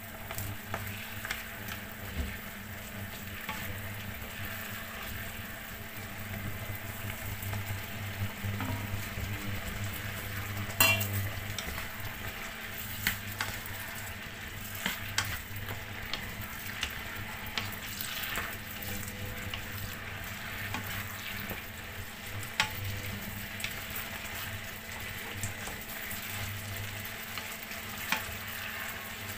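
Diced potatoes and onions frying in a pan, stirred with a wooden spatula that scrapes and taps against the pan. There is one sharper knock about a third of the way through, over a steady low hum.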